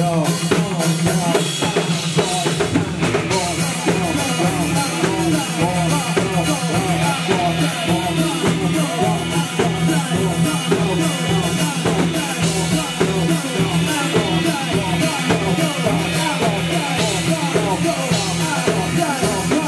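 Live rock band playing at full volume: drum kit keeping a steady beat under electric guitars and bass, with singing into the microphones.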